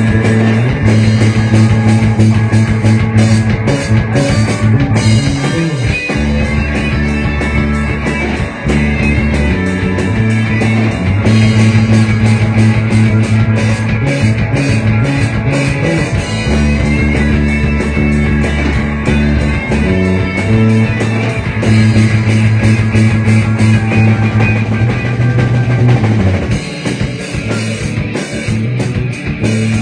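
Rock band playing a song: guitar, bass and drum kit in a loud, steady groove with no vocals. The low bass falls away near the end.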